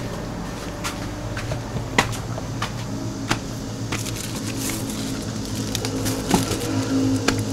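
Footsteps climbing concrete stairs: irregular light taps and scuffs, a few each second, over a steady low hum.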